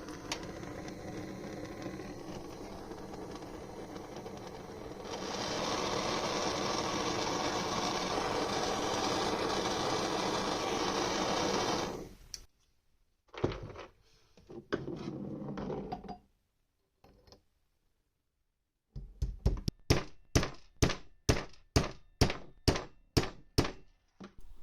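A small machine tool's motor running steadily, louder from about five seconds in, then stopping about twelve seconds in. After a few short bursts and a pause, a rapid run of over a dozen sharp, evenly spaced knocks, a little over two a second.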